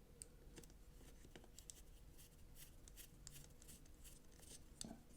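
Near silence: room tone with faint, scattered small ticks of hands handling the knife's small parts.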